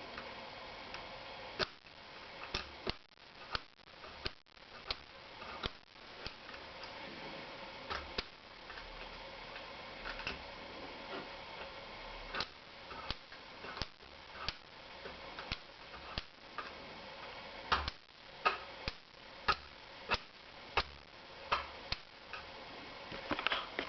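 Model railway during a turnout test: many sharp clicks, irregular at first and coming more evenly, about one and a half a second, near the end, over a steady soft running noise.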